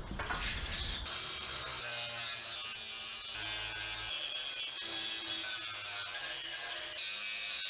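Electric grinder grinding the steel of a C10 front crossmember: a steady high whine that starts about a second in.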